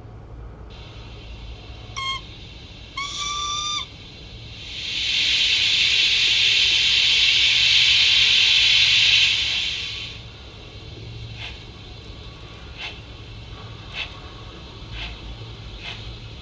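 Recorded steam-locomotive sounds played by a Zimo sound decoder through the Hornby 'Lion' OO gauge model's small factory-fitted speaker. A short whistle toot and then a longer whistle are followed by about five seconds of loud steam hiss. Then slow exhaust chuffs begin and quicken as the locomotive starts away.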